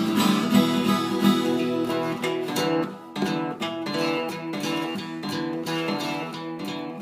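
Instrumental music: an acoustic guitar strumming an accompaniment, with no singing.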